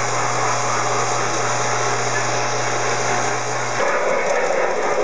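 Steady whir of a running model train's small electric motor and wheels, with a low steady hum. The sound changes abruptly about four seconds in, where the hum stops.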